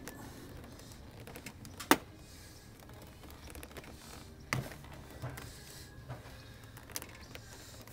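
Small metal pick clicking and scraping against the plastic screw-cover plugs of a Chevrolet Astro van's door panel as they are pried out. A few sharp clicks, the loudest about two seconds in.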